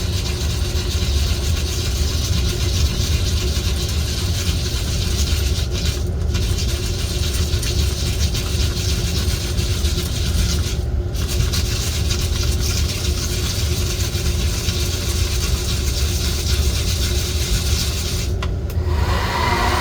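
Drum coffee roaster running: the drum turning with beans tumbling and scraping inside, over a steady low rumble from its motor, fan and burner.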